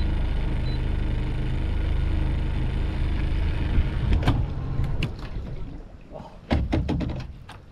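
Small Honda four-stroke outboard idling steadily, then shut off about four seconds in. A few sharp knocks and clunks against the aluminium dinghy follow.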